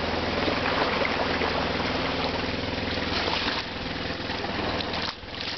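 A steady low motor hum under a constant rushing noise, dipping briefly near the end.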